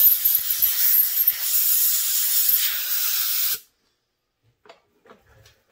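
Loud, steady hiss of a jet being blown through a Stihl MS 361 chainsaw carburetor to clean debris out of its passages. It cuts off sharply about three and a half seconds in, followed by a few faint handling clicks.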